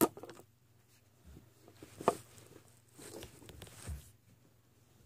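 Soft rustling and a few light clicks and knocks from someone rummaging through small objects, with a sharp click at the start and a low thud near the end.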